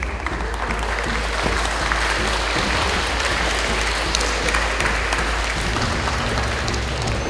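Audience applauding steadily, many hands clapping, with low background music underneath.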